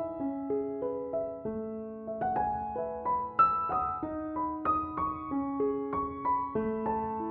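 Background piano music: a gentle melody of single notes over held lower notes, a few notes a second.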